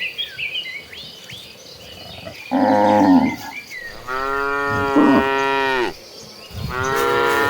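Cattle mooing: a short loud moo about two and a half seconds in, then a long drawn-out moo, and another beginning near the end.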